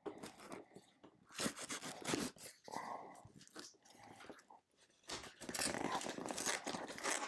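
A knife blade slitting packing tape along the seams of a cardboard box: irregular scraping and crackling strokes of blade on tape and cardboard, busiest near the end.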